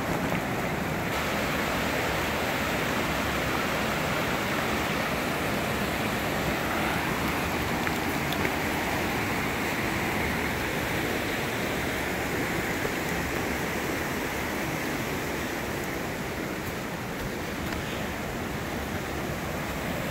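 Creek cascades rushing steadily, the water running high after heavy rain.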